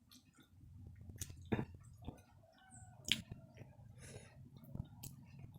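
Scattered sharp clicks and taps over a low background hum, with a faint drawn-out call about two seconds in.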